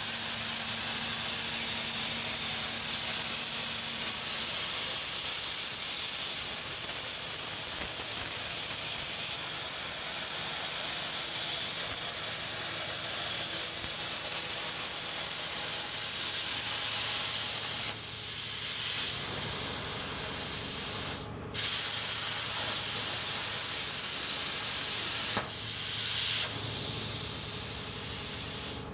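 CNC plasma cutter torch cutting with a steady, loud hiss. The arc cuts out for a moment about 21 seconds in and restarts, with shorter dips in the hiss a few seconds before and after.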